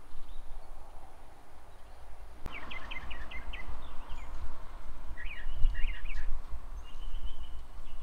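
Small birds chirping in quick runs of high notes, twice from about a third of the way in, with a short trill near the end, over a steady low rumble.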